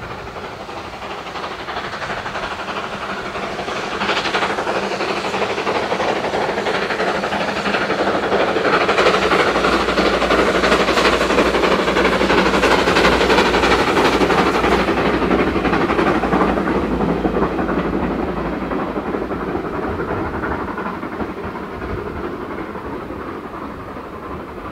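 A steam-hauled train passing by: it grows louder over the first eight seconds or so, is loudest through the middle, and fades away toward the end.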